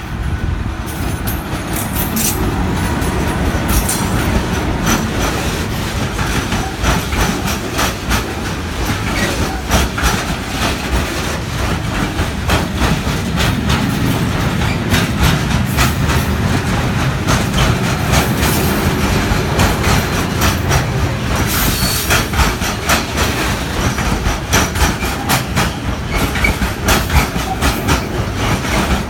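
Freight train of Eas open wagons loaded with timber rolling past, its wheels clacking steadily over the rail joints on a continuous low rumble.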